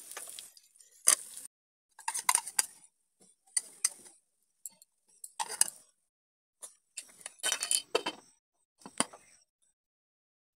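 Steel spoon clinking and scraping against a non-stick frying pan as crab fritters are turned in hot oil, in a series of short separate clatters with silent gaps between. About nine seconds in, a single sharp clink as a glass lid is set on the pan.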